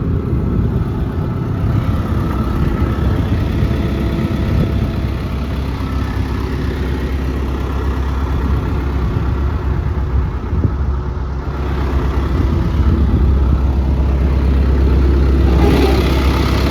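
Case CX240B excavator's Isuzu diesel engine idling steadily, with a deep rumble that grows louder about twelve seconds in.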